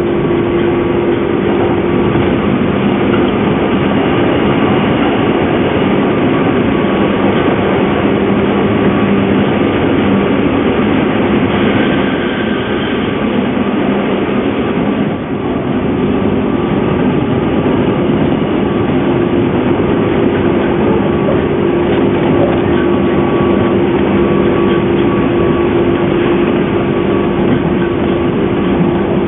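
Interior of a JNR 201 series electric train running, with a steady whine like a nose-suspended-drive train over wheel and rail noise: the uploader suspects a traction motor in poor condition. The whine weakens partway through and comes back several seconds later.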